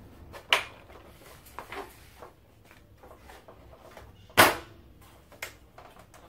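Side cover of an Electrolux PA26G water purifier being fitted onto its housing: a few sharp clicks and knocks as the panel's clips snap into place, the loudest about four and a half seconds in.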